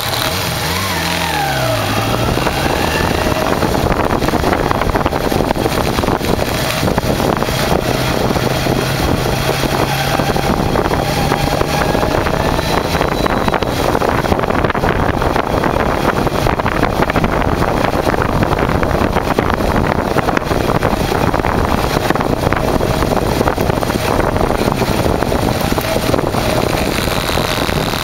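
Kawasaki Zephyr 550's air-cooled inline-four engine under way, its pitch rising and dropping in the first couple of seconds as it pulls through a gear change, then running steadily. Heavy wind rush on the microphone covers most of the engine sound.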